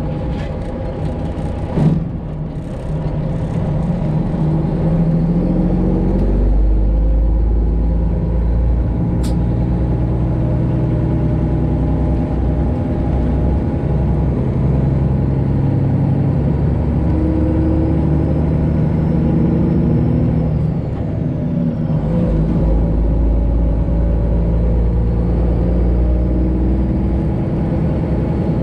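Detroit Diesel 12.7 in a Freightliner Classic XL semi truck running under way, its pitch rising and dropping several times. There is a sharp click about two seconds in.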